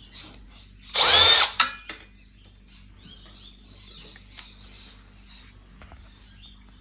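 Cordless electric screwdriver running in one short burst, about half a second long, about a second in, with its motor whine gliding in pitch, followed by a click.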